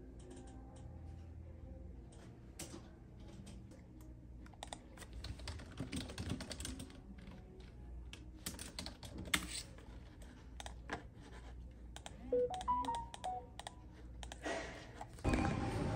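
Typing on a computer keyboard: irregular key clicks, sparse at first and quicker and denser after a few seconds. In the last second a louder, fuller sound cuts in.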